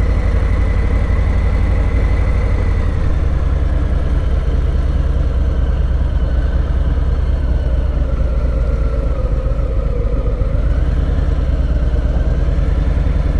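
Harley-Davidson Low Rider's V-twin engine idling and running at walking pace, a steady low engine note with a fast, even pulse.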